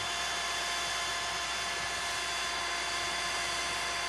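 Cordless DeWalt drill running a spade bit into a wooden door, its motor whining at one steady high pitch under load.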